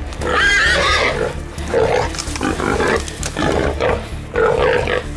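Wild boar squealing and grunting while held by hunting dogs: one loud high squeal about half a second in, then a string of harsh, repeated grunting calls.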